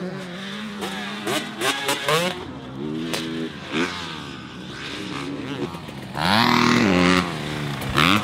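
Husqvarna TC 250 two-stroke dirt bike engine revving up and down, its pitch climbing and dropping again and again as the rider works the throttle and gears. It gets loudest and highest about six seconds in as the bike comes close.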